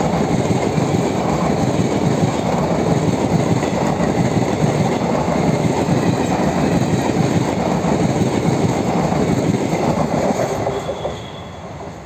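ICF passenger coaches passing close by at speed: a steady loud rumble and clatter of steel wheels running over the rails. It drops off sharply near the end.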